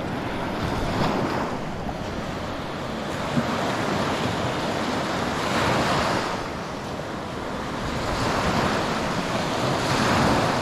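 Baltic Sea surf breaking and washing up a sandy shore, the rush swelling several times as each wave comes in, with wind buffeting the microphone.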